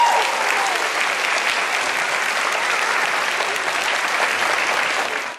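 Audience and children applauding steadily, with one voice calling out briefly at the start.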